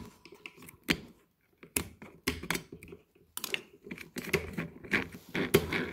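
Irregular clicks, snips and knocks as scissors and fingers work at a plastic office-chair caster wheel, cutting and pulling out hair wound around its axle. The clicks come thicker in the second half.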